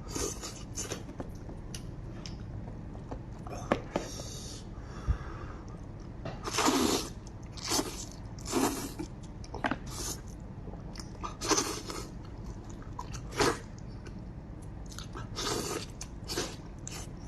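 Close-up eating of a sheep's head: irregular bites and chewing of meat, with a dozen or so louder bursts of noise in the second half.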